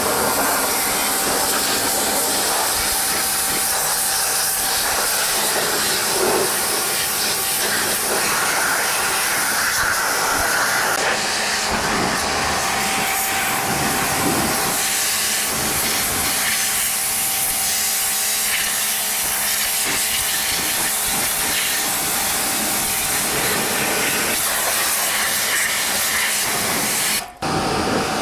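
High-pressure washer jet spraying water onto a tractor's engine, chassis and front tyre: a loud, steady hiss that dips briefly about a second before the end.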